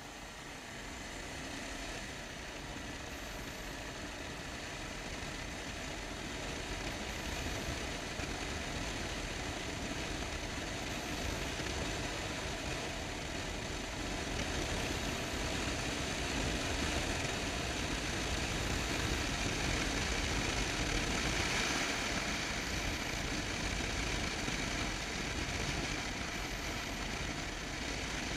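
Motorcycle running along a road, its engine blended with the rush of wind over the microphone as a steady noise, growing gradually louder over the first two-thirds.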